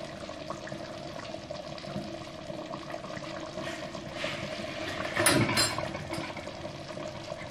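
A pot of noodles boiling steadily on a gas stove, with a brief clatter of metal about five seconds in.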